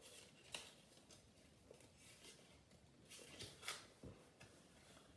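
Near silence broken by a few faint rustles and soft clicks from a Pokémon booster pack and its cards being handled, strongest about half a second in and again around three and a half seconds in.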